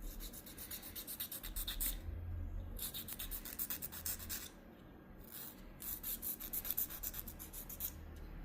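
A nail file rasping across a fingernail repaired with glue and cotton, shaping it in runs of quick back-and-forth strokes. The strokes break off briefly twice.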